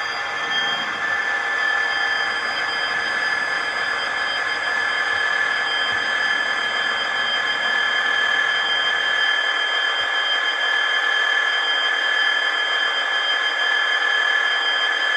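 Dapol N gauge Class 66 model locomotive running slowly along the track: a steady high-pitched whine with a hiss behind it.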